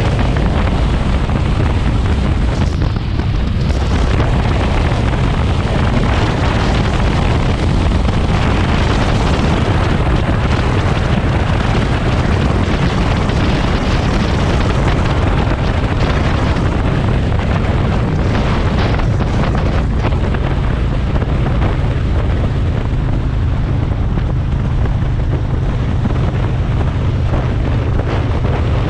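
Wind rushing loudly over the microphone of a motorcycle at road speed, over the steady low hum of the motorcycle's engine.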